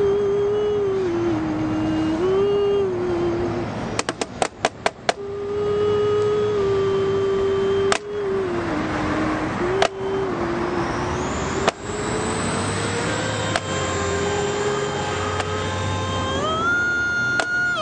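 A man singing wordless long held notes that step up and down between a few pitches, with sharp drumstick clicks: a quick run of about six near four seconds in, then single strikes every couple of seconds.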